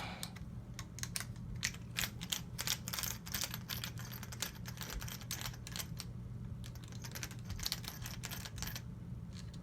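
Light irregular clicks and taps of small metal rifle parts and a screwdriver being handled, during disassembly of a GSG AK-47 .22 LR rifle.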